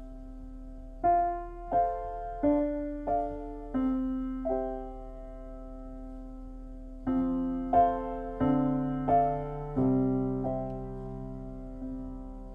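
Solo piano music played back through a two-way car audio speaker system, recorded inside the car. Single notes are struck about every two-thirds of a second, then after a pause come fuller, louder chords, all over a steady low hum.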